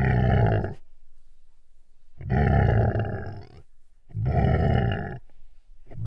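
Three animal growls, each about a second long, with gaps of about a second between them; a fourth begins at the very end.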